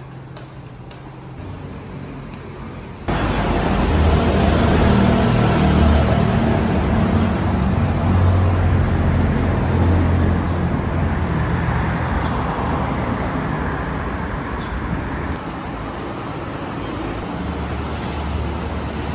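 Road traffic noise: a steady rumble of engines and a roar of tyres, beginning abruptly about three seconds in after a quieter stretch.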